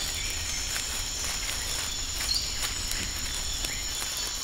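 Outdoor ambience with a steady, high-pitched trill of insects, with a few faint ticks and small chirps over a low rumble.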